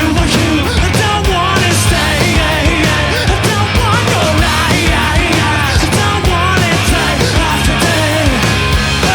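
Loud rock music played by a band, with a steady low end and a melody line that slides up and down in pitch.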